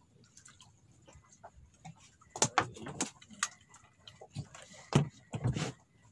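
Irregular clicks and knocks of fishing rods and reels being handled close by, in two clusters about two and a half and five seconds in, the later ones with a dull thud.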